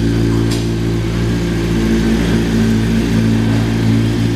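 Honda CBR1100XX Blackbird's inline-four engine idling steadily, without revving.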